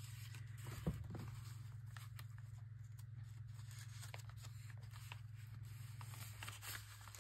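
Faint handling of paper craft pieces, soft rustles and a few light clicks, over a steady low electrical hum.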